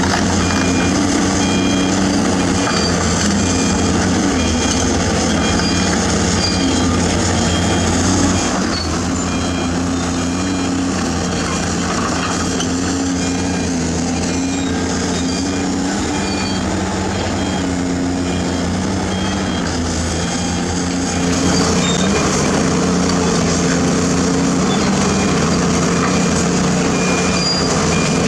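Heavy earthmoving machinery working: the large diesel engine of a Zoomlion ZE490EK-10 ripper excavator running under load, with a backup alarm beeping on and off. The engine sound drops a little about nine seconds in and comes back up a little after twenty seconds.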